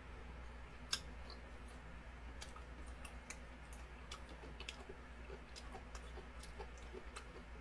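Faint wet clicks and smacks of a man chewing a mouthful of ramen noodles, scattered irregularly, with one sharper click about a second in, over a steady low hum.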